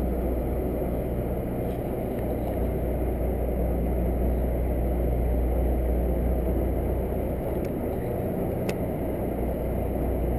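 Steady low rumble of a sportfishing boat's engine idling while the boat sits over the fishing grounds, unchanging throughout, with one faint click about nine seconds in.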